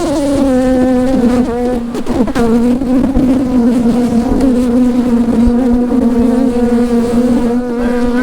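Honeybees buzzing close around an opened hive being split into nucs: a loud, steady, pitched hum from many bees in flight.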